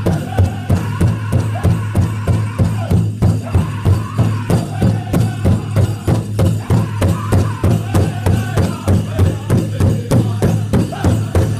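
Powwow drum group playing a chicken dance song: a big drum struck in a steady, fast beat, with the singers' voices over it.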